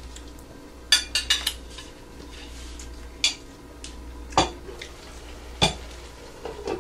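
Fork, plate and a glass wok lid being handled: a series of sharp clinks and knocks, a quick cluster about a second in and single ones spread through the rest.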